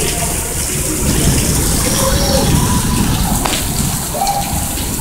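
Steady rain with running, gushing water, an even wash of noise throughout, with a few faint voice fragments.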